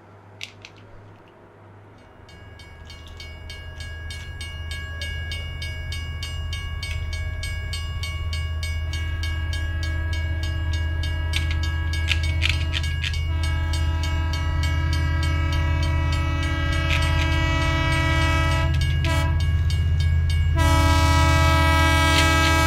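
Model electric train running, with a few clicks, then a steady low motor hum that grows louder over several seconds. Sustained horn-like tones sound above the hum and shift every few seconds.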